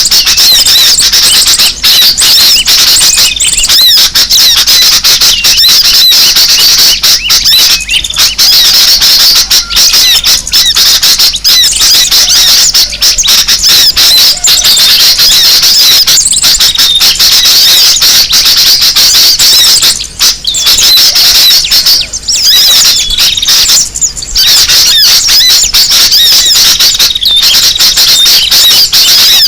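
Loud, dense chattering of sooty-headed bulbuls (kutilang) mixed with the calls of other small birds: a rowdy, agitated flock chorus of quick high chirps and trills without a break, as played for a bird-lure recording.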